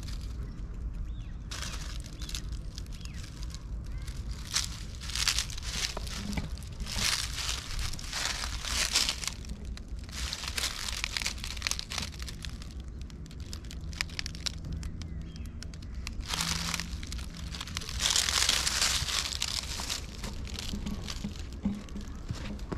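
Dry fallen leaves crunching and rustling as they are trodden on, in irregular bursts, with the longest and loudest stretch a few seconds before the end.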